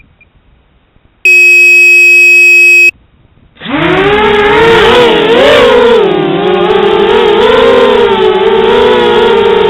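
A loud steady beep lasting about a second and a half, then, after a short pause, the FPV quadcopter's electric motors spin up and run with a pitched hum that wavers up and down as the throttle changes.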